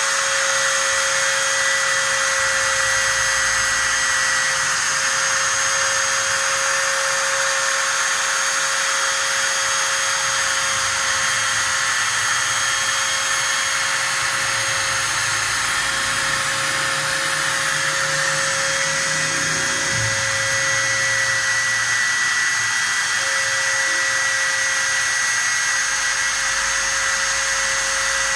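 Automatic aluminium letter-cutting machine running steadily, its cutting motor giving a constant high whine over a dense hiss.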